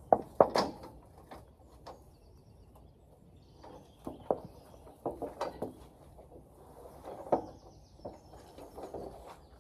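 A round metal hay ring feeder being hauled and shifted over grass, its sections knocking and clanking several times. The loudest knocks come right at the start, with more about four, five and seven seconds in, and scraping and rustling between them.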